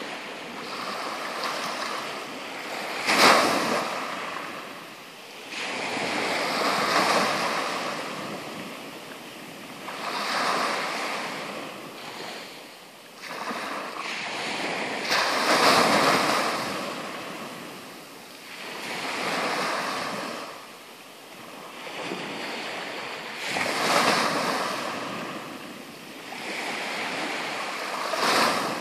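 Small sea waves breaking and washing up a pebble beach, one surge every three to four seconds, the sharpest break about three seconds in.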